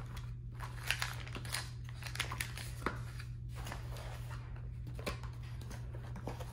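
Paper fast-food packaging being handled: a paperboard nugget box opened and paper bags and wrappers rustled, giving a string of short crinkles, scrapes and light taps over a steady low hum.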